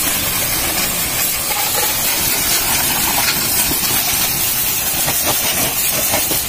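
High-pressure water jet spraying onto a motorcycle's frame and engine: a steady, loud hiss of spray.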